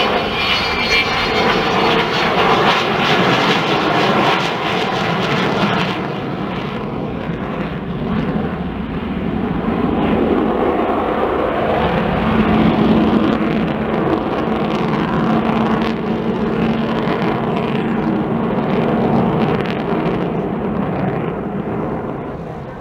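Avro Vulcan bomber's four Rolls-Royce Olympus jet engines running loudly as it flies past and away. A steady hum comes in about halfway through, and the sound fades near the end.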